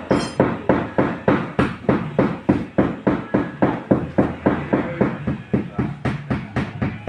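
A hammer beating a car body panel during side skirt bodywork, in a steady run of about three to four blows a second.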